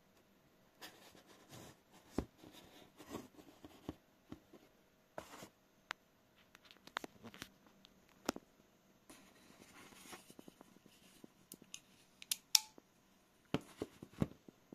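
Faint handling of a Lone Wolf T2 Ranger folding knife: scattered small clicks, taps and rubs of fingers on the wood-and-steel handle. A sharper click comes near the end, at about the time the blade is opened.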